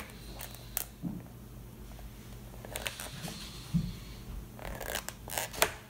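Paper pages of a large book being turned by hand: soft rustles and light taps, with a quicker run of page flips near the end, over a faint steady low hum.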